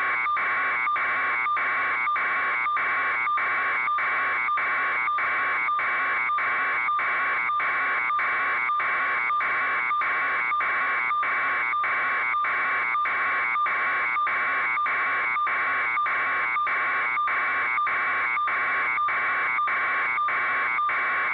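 Electronic alarm buzzer sounding without a break, a harsh buzzy tone pulsing about twice a second.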